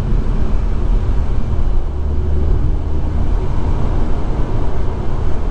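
Cabin noise of a Suzuki Swift Sport (ZC33S) cruising on an expressway: a steady low road and tyre rumble, with the 1.4-litre turbo four-cylinder engine humming faintly underneath.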